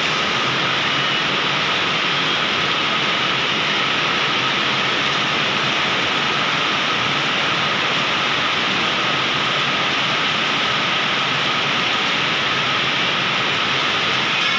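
Heavy monsoon rain pouring down on pavement and floodwater: a steady, unbroken hiss.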